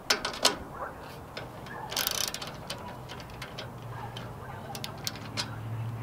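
Ratchet wrench with a 16 mm socket clicking in irregular runs as it loosens a steel bolt. A low steady hum comes in about three seconds in.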